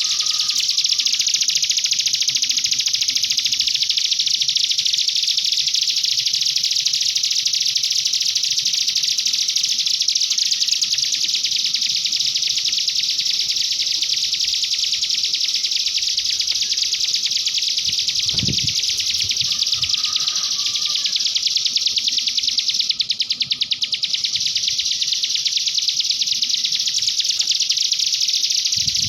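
A mountain white-eye (cigun) singing a fast, unbroken, canary-like warbling song. A brief low thud sounds about two-thirds of the way through.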